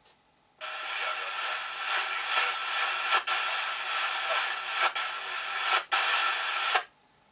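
TTI TCB-550N CB radio's internal speaker opening its squelch on a weak transmission from a distant mobile station: a burst of dense, mostly hiss-like noise with a few brief dropouts, cutting off suddenly after about six seconds. This is a signal barely above the background noise, which the operator puts at about S5 and blames for desensing the receiver.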